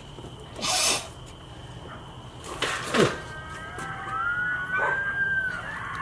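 Coyotes howling, several voices at once, with one long call that rises, holds and drops away near the end. A short loud hiss comes about a second in and a sharp knock about three seconds in.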